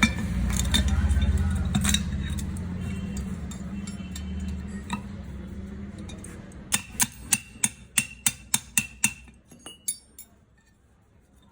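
A quick, regular run of about ten sharp metallic taps, about four a second, each ringing briefly, then a few weaker taps before it stops. Before the taps a low rumble fades away.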